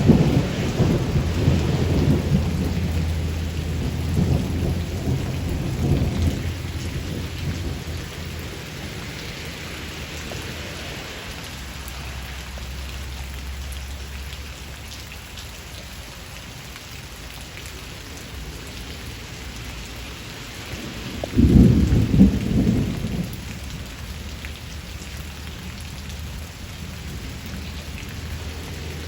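Steady rain shower falling, with a low rumble of thunder dying away over the first several seconds. About two-thirds of the way through, a brief, loud low rumble breaks in, then the rain goes on alone.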